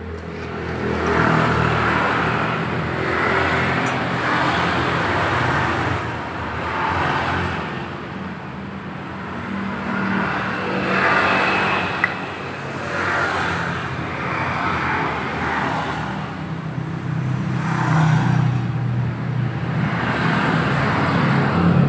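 Motor vehicle engine noise with a steady low hum, rising and falling in swells every few seconds and growing louder near the end.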